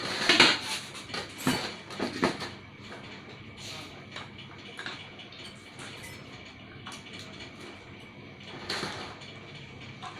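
Clanks and knocks of a water pump being handled as it is taken off its mounting, with several loud knocks in the first two seconds and then scattered small clicks and a brief scrape near the end.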